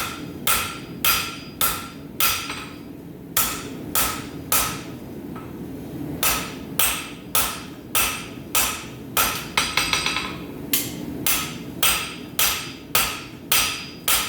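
Blacksmith's hand hammer striking a hot steel bar on an anvil, drawing out and shaping the end: a steady run of ringing blows about two a second, broken by a couple of brief pauses.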